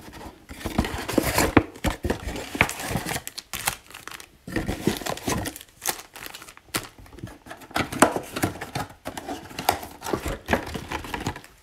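Foil-wrapped trading card packs crinkling as they are pulled from a cardboard retail box and handled, with irregular rustling and short clicks of packs and cardboard.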